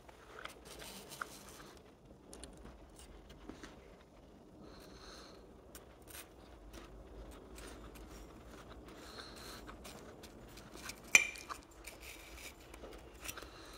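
Someone chewing a crisp apple with the mouth closed: soft crunching and fine crackling clicks throughout, with one sharp, louder crunch about eleven seconds in.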